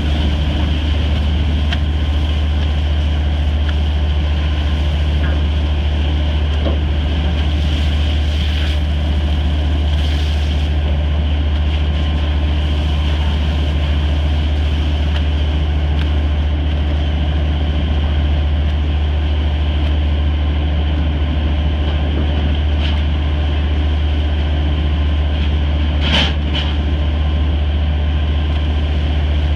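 Fishing vessel's engine running with a steady, loud low drone, with one brief knock near the end.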